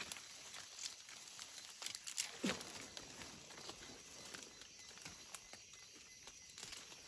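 Rustling and crackling of dry leaf litter and undergrowth as someone moves through it, with scattered small snaps and clicks.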